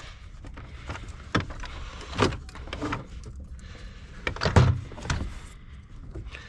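Plastic door-trim pieces being popped loose and handled: a few sharp clicks and knocks, the loudest about four and a half seconds in.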